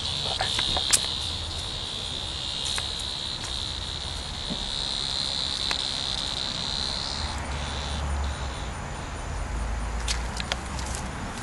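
Cicada buzzing, a steady high drone that cuts off about seven seconds in, followed by a shorter, fainter buzz; a few light clicks sound over it.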